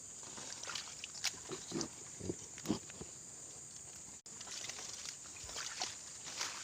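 Steady high-pitched chorus of night insects, with irregular clicks and a few short low grunt-like sounds over it, most of them between about one and a half and three seconds in.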